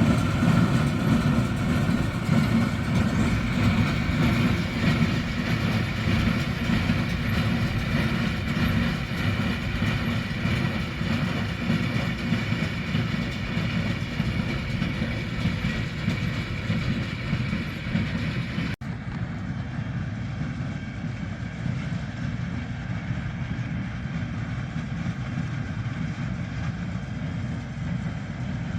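Tractor engine running steadily while working a hay baler, with a continuous mechanical clatter. About two-thirds through the sound cuts out for an instant and comes back a little quieter and duller.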